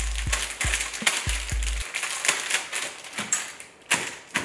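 Plastic wrapper of a mozzarella string-cheese stick crinkling and crackling in quick, irregular clicks as it is peeled open by hand.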